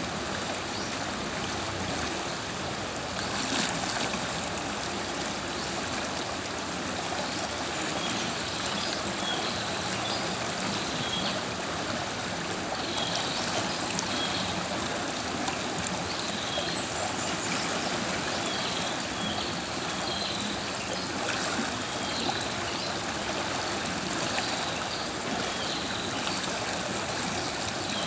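River water flowing in a steady, even rush, with faint short high chirps repeating through most of it.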